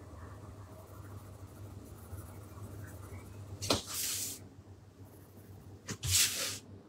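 Derwent Chromaflow coloured pencil scratching lightly on drawing paper as a colour swatch is filled in. About halfway through and again near the end comes a sharp click followed at once by a brief, louder hiss.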